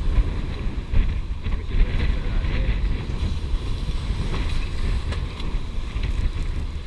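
Wind buffeting the microphone over water rushing along the hulls of a catamaran under way, with a steady low rumble.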